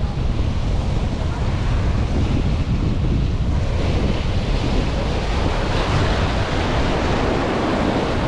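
Strong wind buffeting the microphone over sea surf washing on the rocks; the wash of a wave swells from about halfway in and is loudest near the end.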